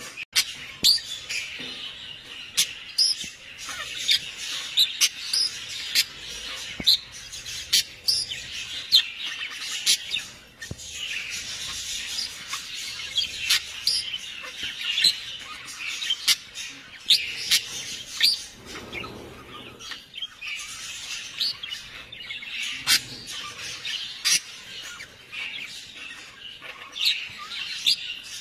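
Many birds chirping together, a dense chatter of short high calls with frequent sharp single chirps throughout.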